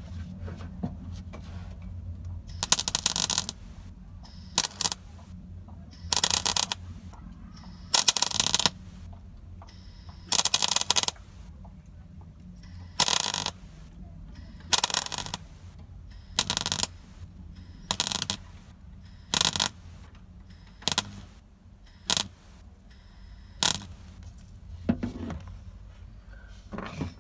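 MIG welder arc crackling in about fifteen short bursts, each under a second and one to two seconds apart: stitch-welding a steel repair section onto a classic Mini's cross member. A steady low hum runs underneath between the bursts.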